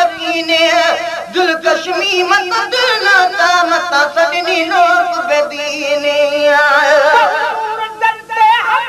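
Solo voice singing a Sindhi naat (devotional song) in a continuous, heavily ornamented melodic line with a wavering pitch.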